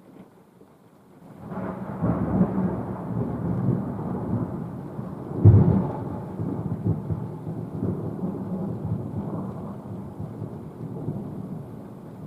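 Thunder: a rumble sets in about a second in, a sharper, louder clap comes near the middle, and a long rolling rumble slowly dies away after it.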